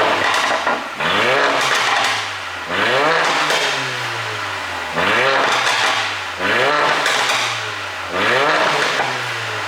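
Mercedes-AMG A45's turbocharged 2.0-litre four-cylinder engine blipped repeatedly, about six quick revs that rise and fall back, on an ECU tune set up for exhaust pops on the overrun.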